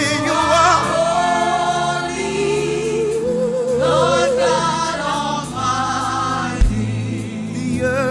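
Gospel worship song: voices singing long, held notes with vibrato over a steady instrumental backing, with a low drum thump about six and a half seconds in.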